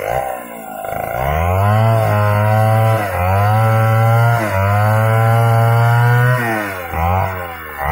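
Two-stroke chainsaw revved up to full throttle about a second in, cutting through a sengon log and held at high revs with two brief dips. It drops back toward idle about six and a half seconds in, with short throttle blips near the end.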